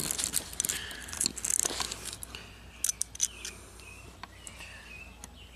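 Light clicks and handling noise as multimeter test probes are set against the slip rings of a motorcycle alternator rotor to measure its resistance.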